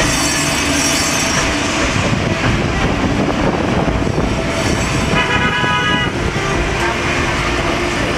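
Street traffic passing, with a vehicle horn tooting once for just under a second about five seconds in.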